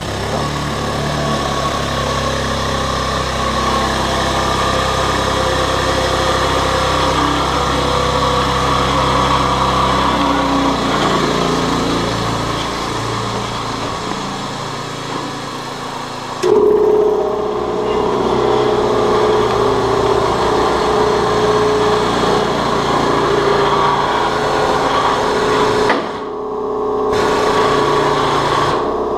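Air-over-hydraulic ram's air-driven pump running steadily, raising the brake leaf to bend 1/8-inch aluminum sheet. It starts abruptly, and a higher steady tone joins in about halfway through.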